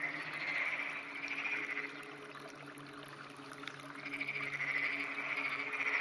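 Male black-spotted pond frog (tonosama frog) calling with its vocal sacs puffed out: a rough, rolling croak lasting about two seconds, then another starting about four seconds in. A steady low hum runs underneath.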